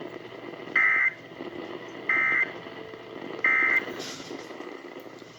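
Emergency Alert System end-of-message signal: three short bursts of warbling digital data tone, about a second and a half apart, marking the close of the alert.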